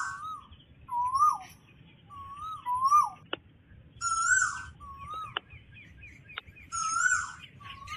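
Recorded lure bird call played on loop from loudspeakers beside a bird-trapping net: one short whistled note, rising then falling, repeats about once a second, some repeats louder and some fainter. A few faint clicks sound in the middle.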